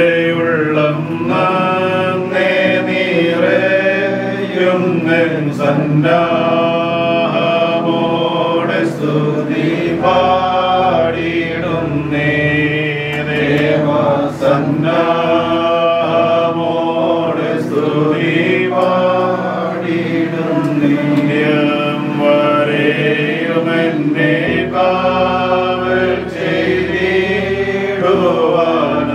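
Slow, chant-like singing over a sustained low accompaniment, the held bass note changing twice.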